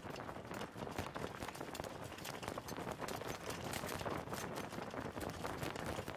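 Harness-racing Standardbred's hooves beating rapidly on the dirt track at racing speed as it pulls the sulky, over a continuous rush of noise.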